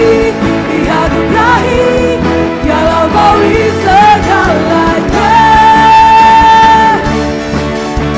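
Live worship band of keyboards, electric guitar, bass and drums playing out the end of a song, with a wordless vocal run that bends and turns over the band. About five seconds in it settles onto one long held note lasting about two seconds.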